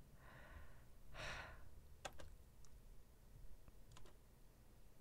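A man breathing out heavily twice, winded from dancing, followed by a few faint clicks.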